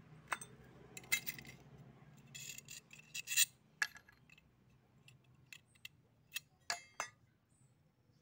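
Small metal parts and a steel ruler being picked up and handled: an irregular series of light clicks, clinks and short scrapes.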